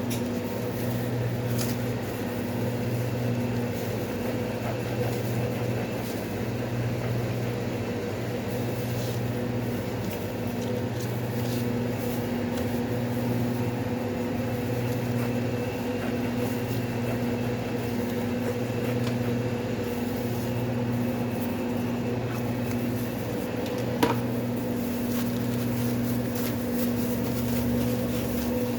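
Steady hum of running kitchen appliances, a low drone that swells and dips unevenly, with a faint high whine over it and one sharp click about 24 seconds in.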